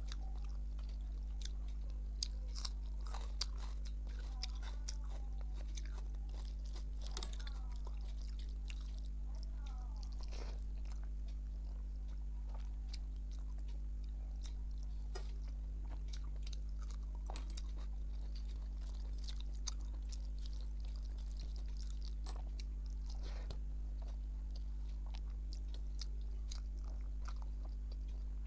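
A person chewing a meal of rice, mung dal, fish curry and fried brinjal close to the microphone, with many small clicks, smacks and light crunches, over a steady low hum.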